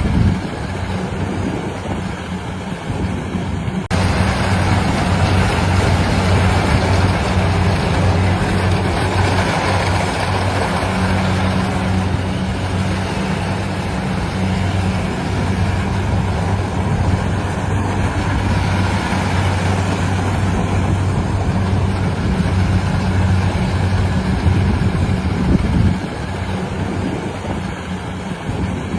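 A heavy engine of rice-harvesting machinery running steadily with a constant low hum and a broad mechanical noise over it. The sound shifts abruptly about 4 seconds in and again near the end.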